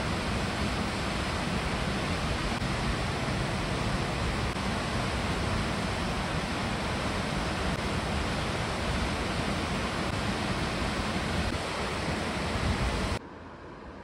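Waterfall: heavy white water pouring over rocks, a steady, loud rush. About a second before the end it cuts off abruptly, leaving a much softer hiss.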